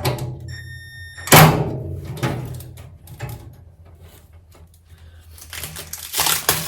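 Sheet-metal cabinet door of a welding cart being handled: a brief high ringing just before a loud metallic thunk about a second and a half in, then quieter clatter and scraping near the end.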